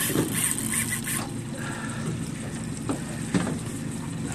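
Boat engine idling with a steady low hum, water splashing near the start, and a few short high-pitched calls over it.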